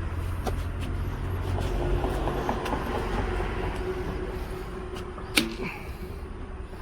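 A low, steady engine rumble with scattered light clicks, and one sharp metallic clank about five seconds in.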